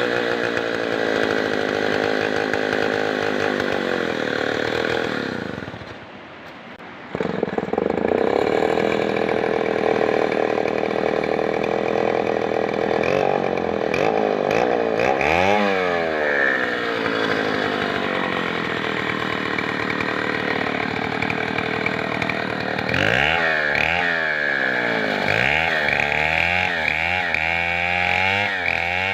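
Chainsaw engine running and revving, its pitch rising and falling under the throttle. About six seconds in it drops away for a second or so, then comes back suddenly. Near the end it is blipped up and down several times in quick succession.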